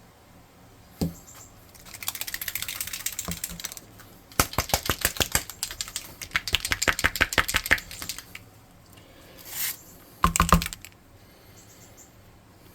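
Dropper bottle of red speed paint being shaken, its mixing ball rattling in fast clicks for several seconds. Near the end comes a short swish and then a louder knock.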